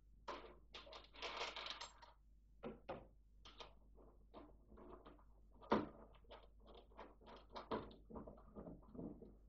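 Hands working at the front rim of a plastic pulk sledge, fitting hardware for a tow bar: a run of irregular light knocks, scrapes and rustles, with one sharper knock a little past halfway.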